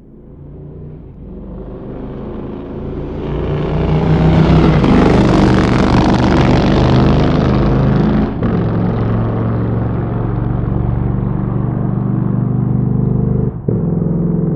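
Motorcycle engine running, fading in from silence and growing steadily louder over the first four seconds, then holding loud and even, with two brief breaks, one partway through and one near the end.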